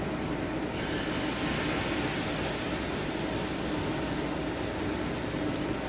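Chickpea-flour batter sizzling in a hot pan: a steady frying hiss that starts about a second in, over a steady low background hum. A brief tick near the end.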